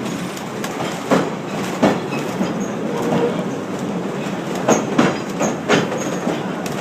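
Train wheels rolling over the track with a steady rumble and a handful of sharp, irregular clicks as the wheels cross rail joints.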